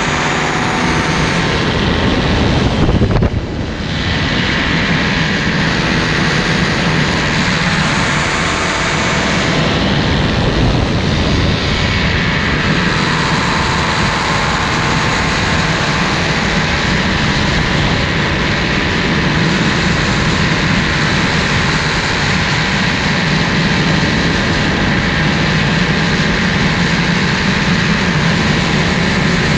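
Paramotor engine and propeller running steadily in flight, with rushing air on the microphone; the sound dips briefly about three seconds in.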